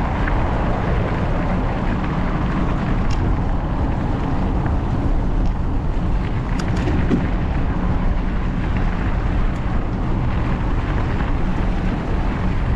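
Steady wind noise buffeting the microphone of a camera on a moving mountain bike, over the tyres rolling on a dirt path, with a few small clicks and rattles.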